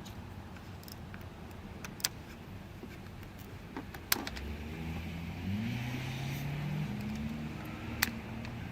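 A few sharp clicks, then about four seconds in a van engine with a dead battery, boosted by a portable jump starter, catches and runs. Its pitch climbs as it revs up and settles. Another sharp click comes near the end.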